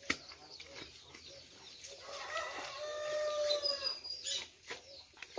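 A rooster crowing once: one long drawn-out call starting about two seconds in and dropping in pitch as it ends near the four-second mark. A single sharp knock right at the start.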